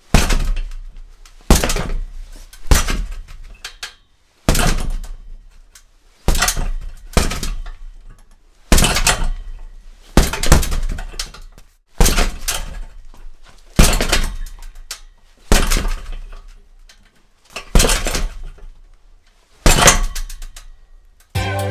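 Gloved punches landing one at a time on a boxing heavy bag hung by a chain, about a dozen single strikes one to two seconds apart. Each punch is sharp and is followed by a natural echo that fades out before the next one.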